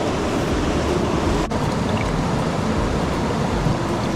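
Mountain stream water rushing steadily over rocks, with a momentary break in the sound about a second and a half in.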